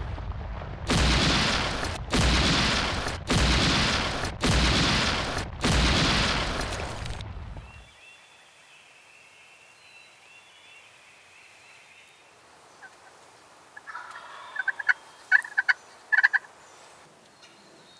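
Five heavy booming hits of an intro sound effect, each dying away over about a second, the last fading out about seven seconds in. After a stretch of quiet woods, a wild turkey tom gobbles about fourteen seconds in, a short run of quick sharp notes.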